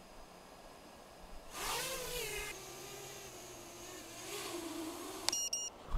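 Six-inch FPV quadcopter with Foxeer Datura 2207.5 1960KV motors spinning up and lifting off about a second and a half in: a rising buzz, then a steady propeller hum that swells slightly as it flies off. Near the end, a click and a quick run of high electronic beeps.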